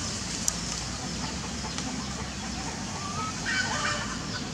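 A few short pitched animal calls against a steady background: a brief one just after three seconds and a busier cluster of calls about three and a half seconds in, with a single sharp click about half a second in.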